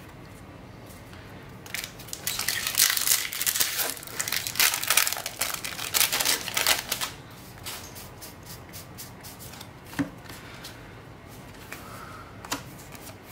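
Foil wrapper of a War of the Spark booster pack being torn open and crumpled: a busy run of crinkling and crackling from about two seconds in until about seven seconds. Then quieter handling of the pack's cards, with one sharp tap near ten seconds.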